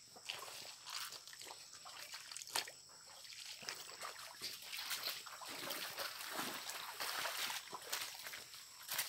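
Footsteps on wet, muddy forest ground and leaf litter, irregular scuffs and knocks, over a small stream trickling and sloshing.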